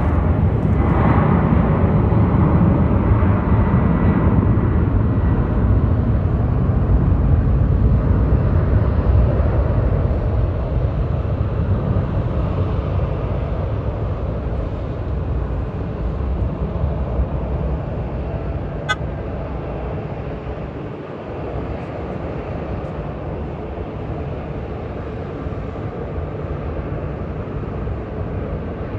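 Jet airliner engines, loud and steady at first, then slowly fading over the second half as the aircraft moves away.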